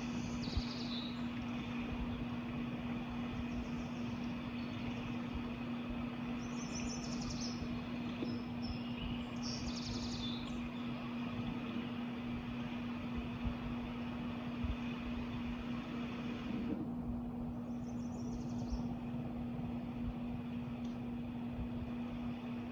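Birds chirping in a few short high bursts: near the start, twice about a third of the way in, and once more about three quarters through. Beneath them runs a steady low hum and a continuous wash of background noise.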